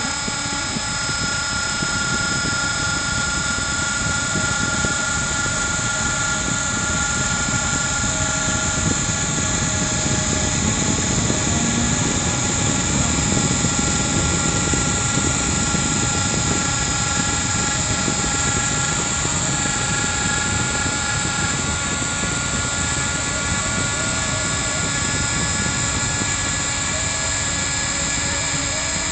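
CNC router spindle running with a steady high whine over a constant rush as the bit engraves wood.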